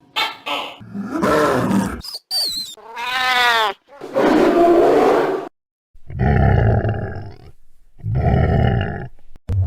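Dragon roar sound effects: about six separate roars and growls with short gaps between them. One about three seconds in is a pitched cry that rises and falls; the last two are deep and rumbling.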